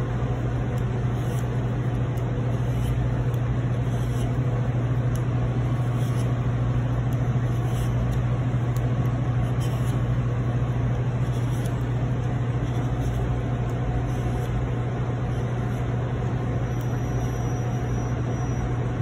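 Steady low hum of kitchen machinery, with faint light scrapes every second or so from a handheld vegetable peeler stripping the skin off a mango.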